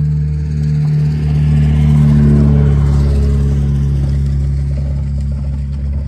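A motor vehicle driving past, swelling to its loudest about two seconds in and then fading as its pitch drops slightly, over a steady low engine hum.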